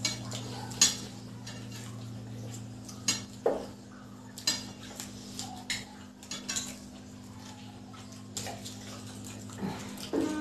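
Scattered clinks and taps on a small steel bowl and ceramic plates, with chewing and mouth sounds of eating, over a steady low hum.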